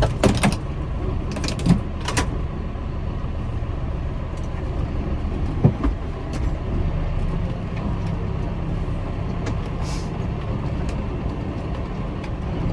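Massey Ferguson 5S.145 tractor's four-cylinder diesel engine running steadily, heard from inside the cab, with a few sharp clicks and knocks in the first two seconds and another about six seconds in.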